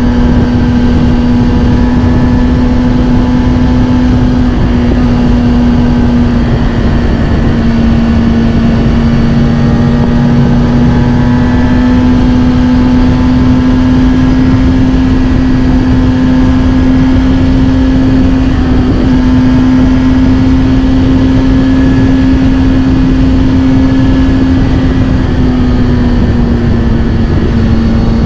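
Kawasaki Ninja ZX-6R's inline-four engine, breathing through a Scorpion titanium exhaust, held at a steady cruise. Its note stays almost constant in pitch, rising slightly and then easing back a little near the end, over a steady rushing noise.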